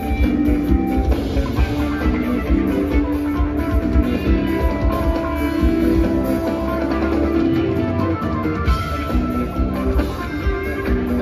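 Live rock band playing loudly: electric guitars and electric bass over a drum kit, held notes shifting over a steady beat.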